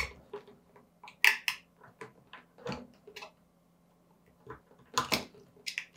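Knife blade cutting around the warmed rubber sheath of a gas hose next to its brass connector: scattered short scrapes and clicks, the loudest about a second in and again near the end.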